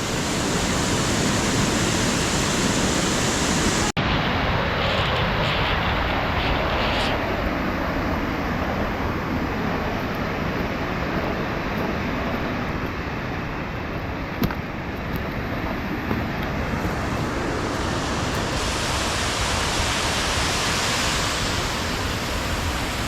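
Steady rushing noise of a creek and waterfall, broken by a momentary dropout about four seconds in.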